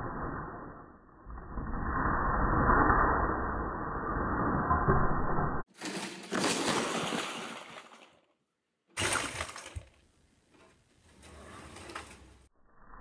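A large Lego build crashing off a table onto the floor, its plastic bricks smashing and clattering apart in two loud stretches with a short silent gap between them, the first about halfway through. Before the crash, a dull, muffled rumble with no treble.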